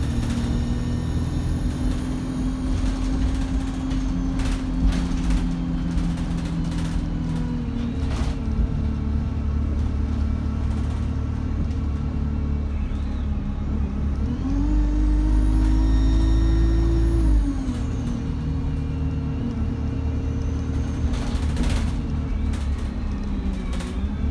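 Diesel bus engine running under way, its pitch stepping up and down, with a high turbocharger whistle that rises and falls, loudest about two thirds of the way in. A few short, sharp sounds come and go over it.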